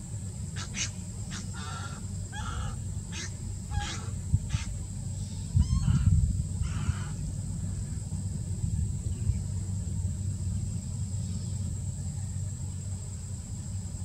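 Osprey calling from its perch: a rapid series of about ten short, sharp whistled notes that stops about halfway through. A low wind rumble on the microphone runs underneath and is loudest about six seconds in.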